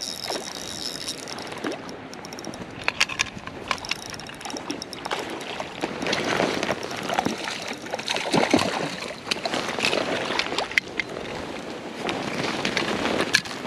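Water splashing and sloshing, with many irregular sharp splashes, as a freshly hooked trout thrashes at the surface while it is played in.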